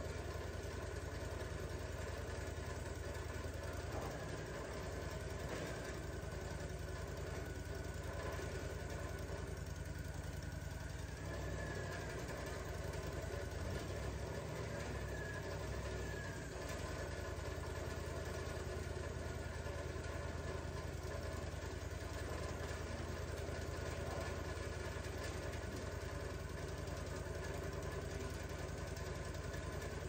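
An engine running steadily, its note shifting slightly a few times.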